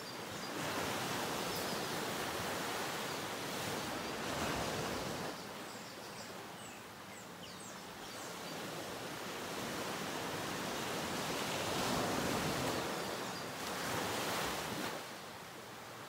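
Ocean surf washing in as a steady rush of water, swelling and falling away twice. A few faint high chirps sound about five to eight seconds in.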